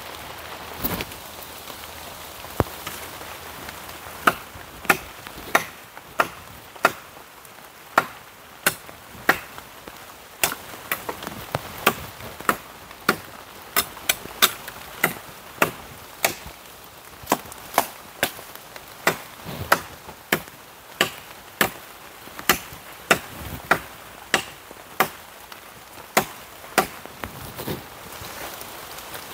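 Dry wood being chopped by hand with a blade: a long run of sharp chops, roughly one or two a second with brief pauses, over a light patter of rain.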